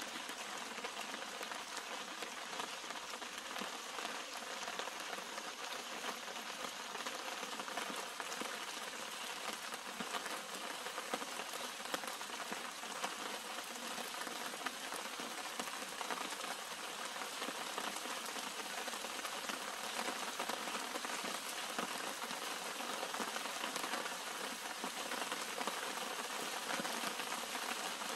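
Steady rain falling on the leaves and flower clusters of a garden shrub: an even hiss of countless small drop impacts, with scattered individual drop ticks.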